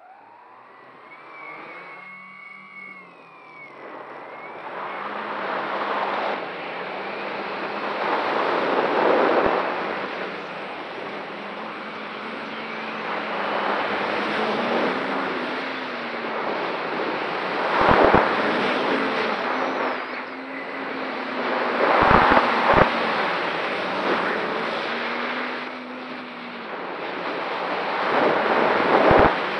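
Large 1000mm X-Class quadcopter's motors and 13-inch propellers heard from its onboard camera: a rising whistle as it lifts off, then a rush of propeller and wind noise that swells and fades with the flying, under a motor tone that wavers up and down. A few sharp buffets of air on the microphone stand out near the middle.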